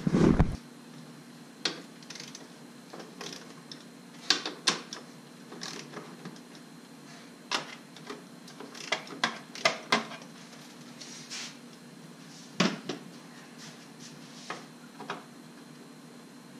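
Socket ratchet with an extension working the 10 mm bolts of a car's battery tray: scattered metallic clicks and clinks, irregular, with a quick cluster about two-thirds of the way through.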